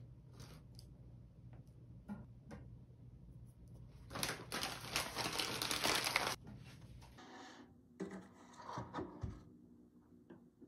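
Kraft-paper bag crinkling and rustling for about two seconds, near the middle, as fried snacks are taken out of it. A few light clicks and knocks follow as they are set on a wire basket and put into an air fryer.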